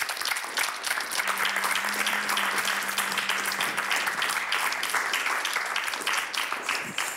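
Studio audience applauding steadily, a dense patter of many hands clapping that fades away near the end.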